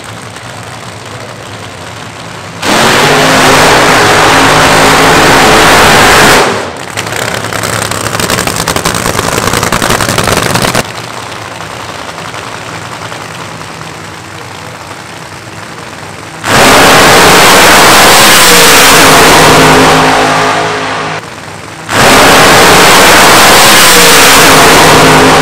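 Supercharged drag-racing funny car engines idling, broken by three loud full-throttle blasts several seconds long, with the revs climbing and falling. The last blast, about three seconds before the end, is the pair launching off the start line side by side.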